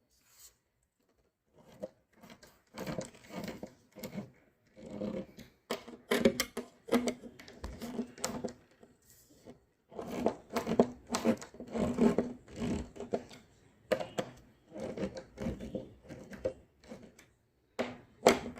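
Screws being turned by hand into a coffee table's base stand, in a run of short repeated turns with brief pauses.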